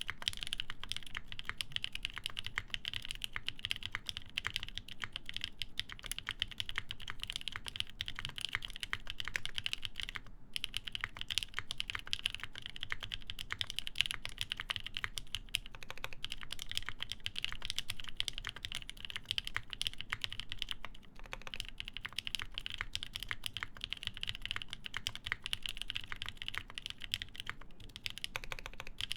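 Continuous fast typing on a plateless, PCB-mounted mechanical keyboard with lubed linear switches and GMK keycaps, a dense run of keystroke clacks with short pauses about a third of the way in, about two-thirds in, and near the end.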